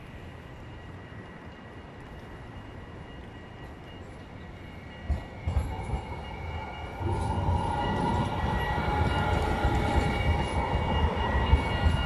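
RET Alstom Citadis city tram approaching and passing close by: a rumble of wheels on the rails that grows louder from about halfway in, with a few knocks as it comes and a steady whine of the electric drive on top.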